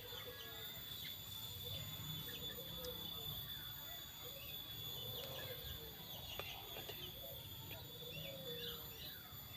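Several birds chirping and calling, many short chirps and falling whistles scattered throughout.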